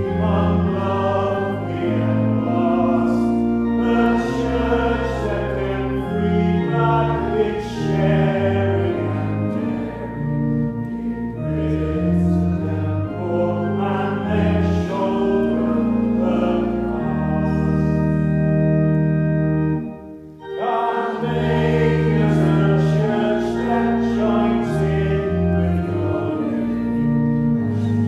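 Congregation singing a hymn in unison with organ accompaniment. A long held chord comes partway through, then a brief break before the next line starts.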